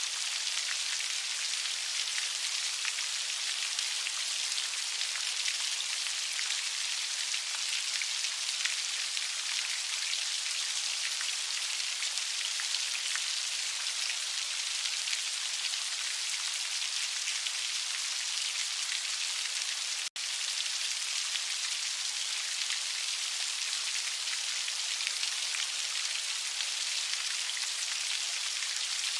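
Heavy rain falling steadily: a dense, even hiss of many small drops. It cuts out for a split second about twenty seconds in.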